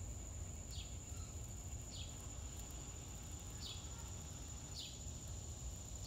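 Steady, high-pitched insect drone with a short falling chirp repeating about once a second, over a low rumble.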